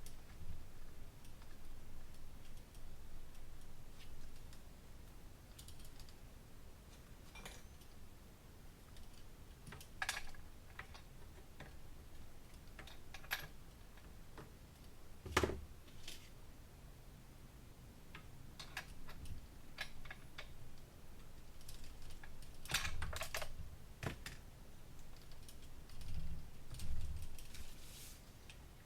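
Scattered clicks and light knocks of small parts and hand tools being handled during reassembly of a two-stroke hedge trimmer, with a few sharper knocks.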